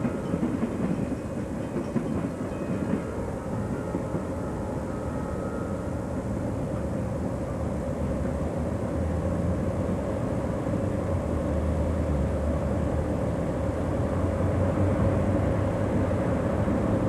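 Amtrak passenger train rolling across a railroad bridge: a steady rumble with a constant hum, slowly growing louder toward the end.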